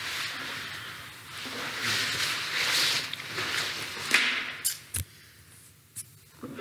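Rustling handling noise as a person shifts about and reaches for the webcam setup, followed by a few short sharp clicks about four to six seconds in.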